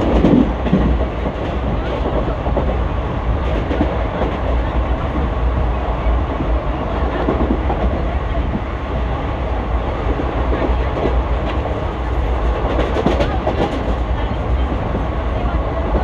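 ICF passenger coaches running along the track at speed: a steady wheel-on-rail rumble, with a few faint clicks over rail joints.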